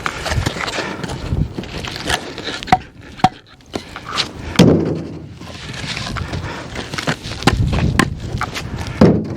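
Snow and frozen chunks being dug and pulled off a tarp-covered pile of split oak firewood: irregular scraping and knocking, with two heavier thumps about halfway through and near the end.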